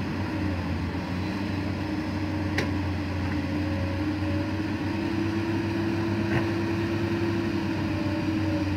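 Komatsu PC200 hydraulic excavators' diesel engines running steadily under digging load: a low drone with a pitched hum that rises slightly and then holds, and a couple of faint clicks.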